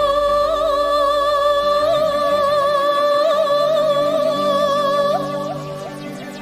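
Folk-dance song: a woman's voice holds one long note with vibrato over quiet instrumental accompaniment, fading near the end.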